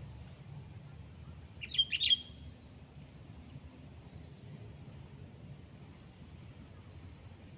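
A sooty-headed bulbul (kutilang) gives a quick burst of a few chirping notes about two seconds in, over a steady high-pitched insect drone.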